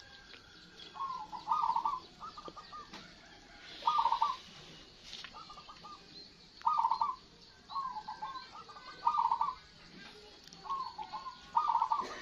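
Several caged zebra doves (perkutut), local and crossbred birds, cooing in short rolling phrases that answer one another every second or two.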